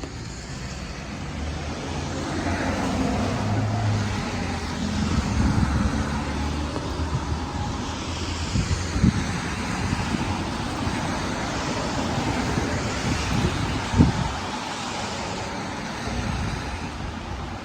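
Street traffic: cars driving past close by, a steady low rumble with hiss. Two sharp knocks stand out, the louder one near the end.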